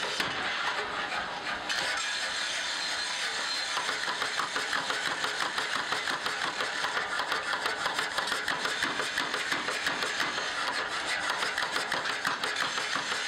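Mechanical power hammer running and striking a red-hot steel cleaver blank in rapid, even blows.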